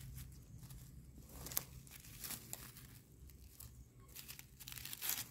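Dry fallen leaves rustling and crackling as mushrooms are picked by hand from the leaf litter. It comes as an uneven run of short crackles, with one sharp crack about a second and a half in and the loudest rustle near the end.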